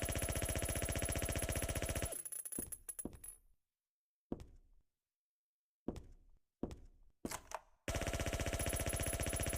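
Suppressed submachine gun (MAC/Uzi type) sound effect: rapid full-auto fire that stops about two seconds in and trails off, four separate single sharp reports in the pause, then rapid automatic fire starting again near the end.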